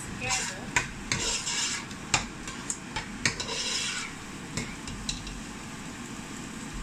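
Metal spoon stirring thick egusi soup in a pot, scraping through the paste and knocking against the pot's sides and bottom. The strokes and sharp clicks come thick for about four seconds, then thin out to a few taps.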